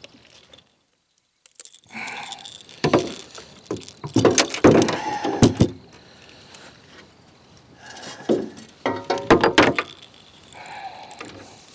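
Irregular clusters of knocks, thuds and rattling clicks from handling gear and a landed fish in a small boat, after a brief dropout about a second in.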